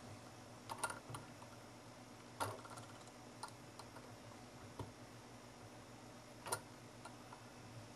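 Light clicks and taps from fingers handling a glass-piston Stirling engine, about five scattered over eight seconds, over a faint steady low hum.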